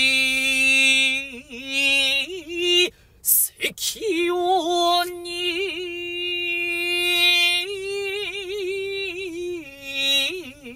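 Solo unaccompanied male shigin chanting of a Japanese-style Chinese poem. Long held vowels, first on a lower note, then after a quick breath about three seconds in on a higher note, with short wavering ornaments between the held notes and little vibrato on them.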